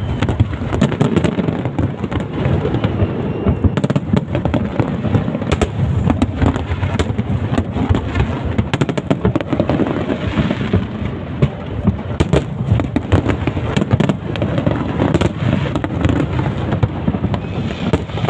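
Fireworks going off without pause: a dense, rapid crackle of many sharp pops over a continuous low rumble of bangs.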